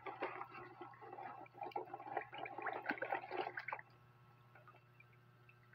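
A hand sloshing and splashing water in a basin while handling freshly caught seafood, with many small splashes and drips. The splashing stops about four seconds in, leaving a faint low hum.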